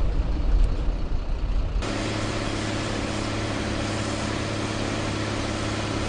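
Police water-cannon truck running, its engine droning steadily. For the first couple of seconds the engine is buried under a gusty low rumble of wind on the microphone; then the sound changes abruptly to a clearer, steady engine hum with a steady hiss over it.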